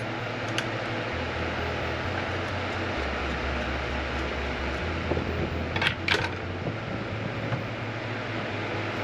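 Steady fan-like background whoosh with a low hum, broken about six seconds in by two sharp clicks of a screwdriver being handled and set down on a plastic board.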